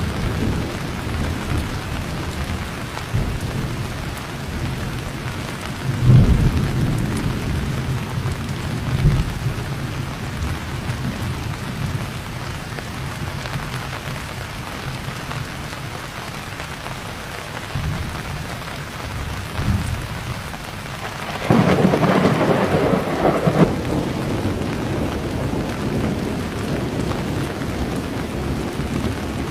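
Steady heavy rain with low rolls of thunder, and a louder, sharper thunderclap about two-thirds of the way through.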